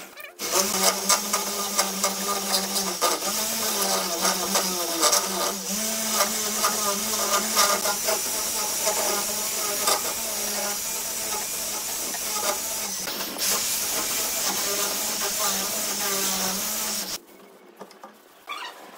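Corded electric drill running steadily as it bores the lock mortise in the edge of a wooden door through a mortising jig, its motor pitch wavering slightly under load. It pauses briefly at the start and stops near the end.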